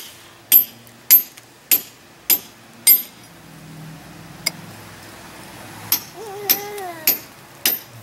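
Hand hammer striking a cold chisel, chipping away at the concrete house foundation around a conduit. There are sharp metallic strikes about every 0.6 s: five in the first three seconds, then after a pause four more near the end.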